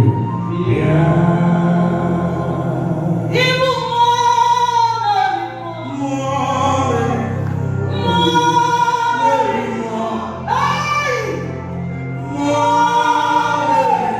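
Gospel-style worship singing. A voice holds long, wavering notes in phrases of a few seconds each, over a sustained low accompaniment.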